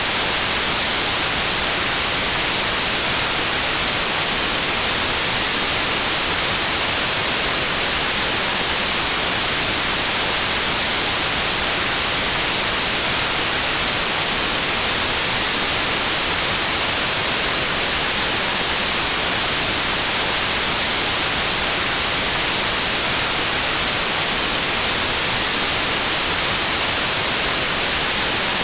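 Steady white noise: an even, unbroken hiss, strongest in the highs.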